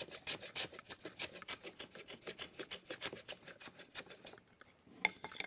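Small shoulder plane cutting wood in quick short strokes, a rapid run of dry scrapes about four a second as it trims a joint's corner clean, stopping a little after four seconds in. One sharp knock follows about five seconds in, the loudest sound.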